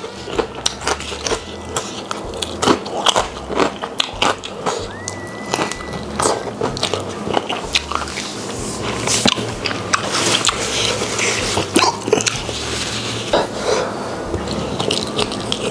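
Close-miked mouth sounds of eating: wet chewing and lip-smacking, with many short sharp clicks, as spicy stir-fried squid and rice are eaten by hand.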